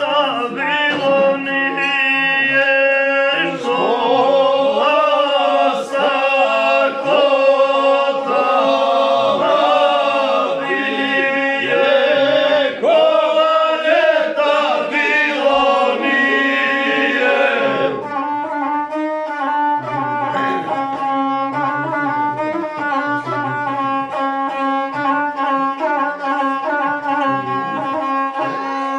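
Men singing a folk song together over a steady held drone note. The singing is fullest for the first two-thirds, then thins to a steadier texture.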